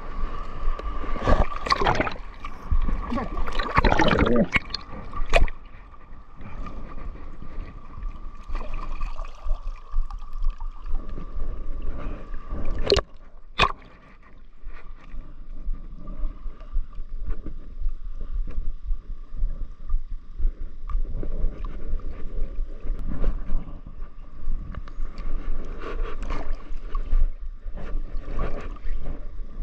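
Shallow sea water sloshing and splashing close to the microphone around a wading angler's hands and arm as he handles a small fish he has caught, with a steady faint tone underneath. Two sharp clicks come about 13 seconds in.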